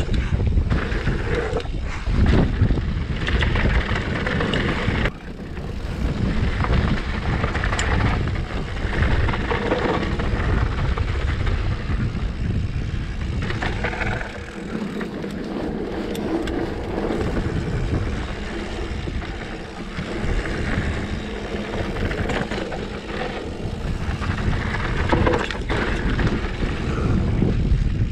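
Wind rushing over the camera microphone, with the tyres of a Specialized Stumpjumper mountain bike rolling fast over a dirt trail. Frequent short knocks and rattles come from the bike as it runs over bumps on the descent.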